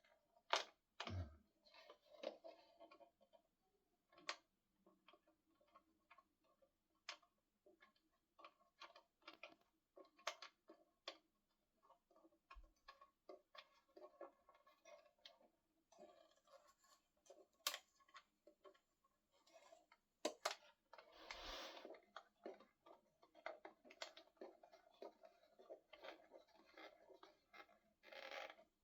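Near silence with faint, scattered clicks and taps of small parts being handled, and a brief louder rustle about twenty seconds in.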